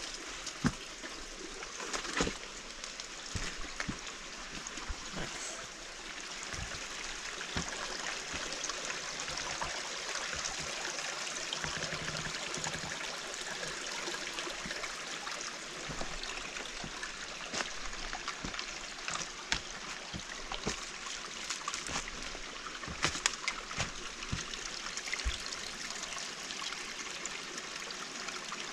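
Steady rushing of running water, with scattered faint clicks and knocks.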